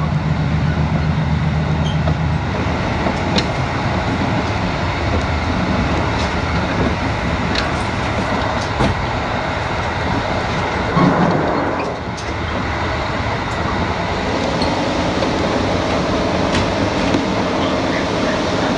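Running sound of a KiHa 85 series diesel railcar in motion, heard on board: a steady rumble of wheels on rail with scattered clicks. A diesel engine hum is heard for the first couple of seconds and then fades into the rumble.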